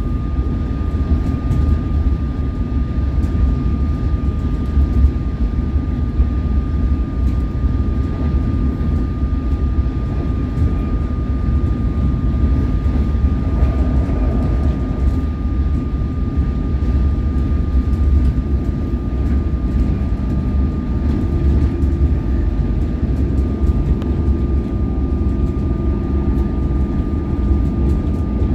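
Cabin running noise of a Comeng electric suburban train on the move: a steady low rumble of wheels on rail with a thin constant whine above it. A couple of steadier low hums join in about three quarters of the way through.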